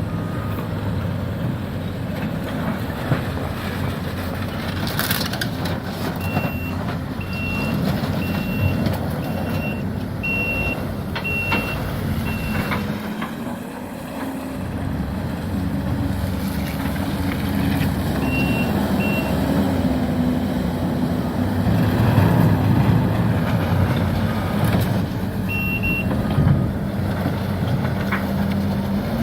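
Heavy diesel demolition machinery running steadily, its engine note shifting as it works, with a reversing alarm beeping in runs of about one beep every three-quarters of a second and a few sharp cracks of debris.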